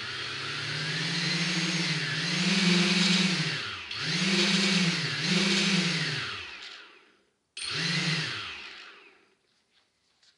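Octocopter's brushless motors running on the bench to test their wiring, a whine that rises and falls in pitch several times as they speed up and slow down, cutting off about seven seconds in; a short second spin-up follows about half a second later and dies away.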